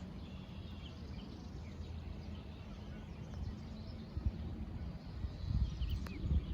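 Small birds chirping faintly over a low outdoor rumble, which swells about two-thirds of the way in.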